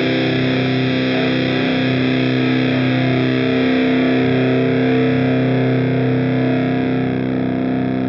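Electric guitar through the Transformations fuzz pedal set to a thick, dark, heavy fuzz: one chord held and left ringing, with a reverb-like delay behind it.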